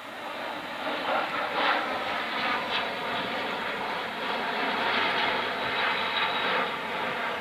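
Airbus A400M Atlas military transport passing overhead, its four turboprop engines giving a steady drone made up of many layered propeller tones.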